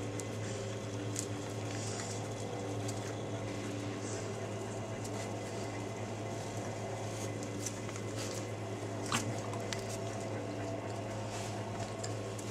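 Steady low hum throughout, with scattered faint clicks and soft wet, squishy sounds over it, one sharper click about nine seconds in.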